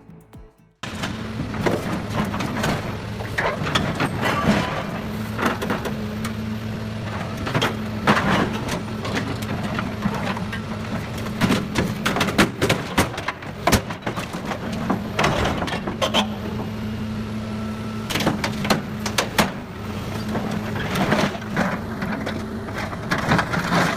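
Heavy machine's diesel engine running steadily, with repeated sharp cracking and crunching as material breaks under it. The sound starts about a second in, after a brief silence.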